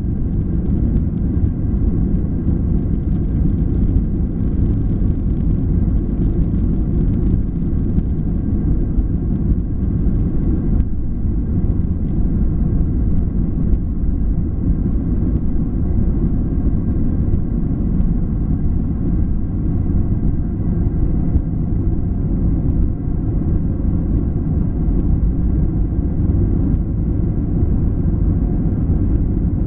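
Boeing 737-800 jet engines running: a steady, loud low rumble with faint steady whining tones above it, unchanging throughout.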